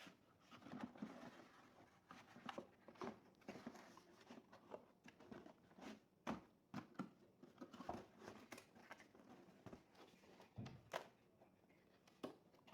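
Faint, irregular clicks and taps of hands handling a laptop's plastic case and small parts during a RAM upgrade.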